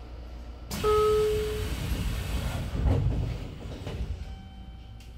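Pneumatic passenger doors of a JR Kyushu 813-series electric train closing: a sudden loud hiss of air with a short tone sounding over it, then a low thud about two seconds later as the doors shut.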